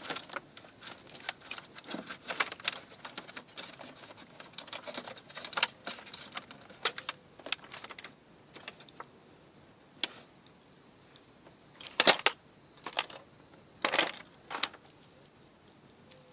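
Irregular small metallic clicks, taps and rattles of tools and parts being handled while an air-conditioner unit is taken apart for scrap, with a few louder knocks near the end.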